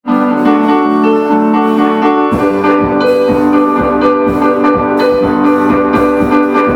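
Music: held chords for about two seconds, then a steady drum beat comes in under them.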